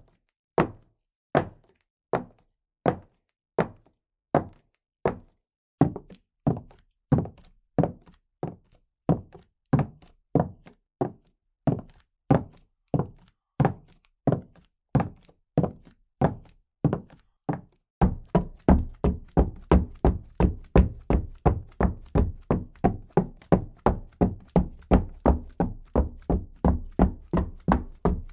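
Footsteps at a steady walking pace, a little over one step a second. About two-thirds of the way through they switch to much quicker steps, about three a second, like running.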